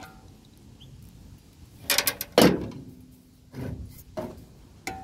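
Metal generator parts and tools being handled: two loud clunks about two seconds in, the second leaving a short metallic ring, then a few lighter knocks.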